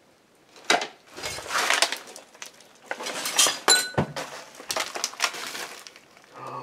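Glass bottles and metal junk clinking and clattering as a cluttered pile of debris is shifted, starting under a second in, with a short ringing clink about four seconds in.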